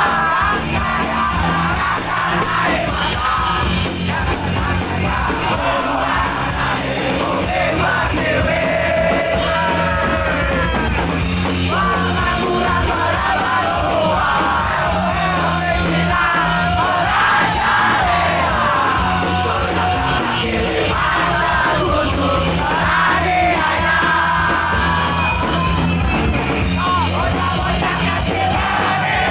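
Live punk rock band playing electric guitars and drums behind a sung lead vocal, with the crowd singing and yelling along.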